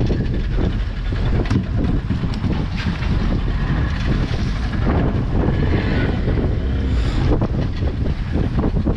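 Strong wind buffeting the microphone aboard a fishing boat at sea: a steady, loud low rumble with a few scattered knocks.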